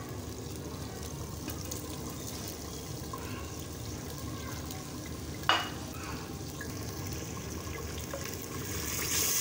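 Wooden spoon stirring chicken curry in a hot clay pot, the gravy faintly sizzling. There is one sharp knock about five and a half seconds in, and the hiss grows near the end.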